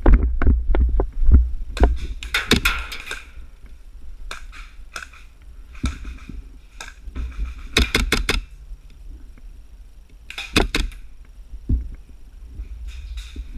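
Movement and handling noise on a body-mounted action camera: low thumping rumble with scattered knocks and clusters of rapid clicks and rustles.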